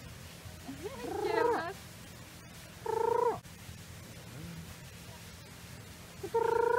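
A parrot calling: three clear, pitched calls a few seconds apart, the first wavering and sliding in pitch, the other two short and steady.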